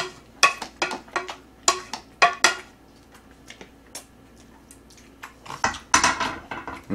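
Wooden spoon knocking and scraping against a ceramic plate and an instant noodle cup: a quick run of clicks in the first couple of seconds, then another clatter of tableware near the end.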